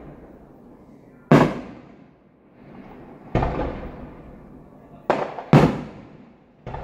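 Aerial fireworks bursting overhead: four sharp bangs, one about a second in, one near three seconds, and two close together near the end, each trailing off in a rolling echo.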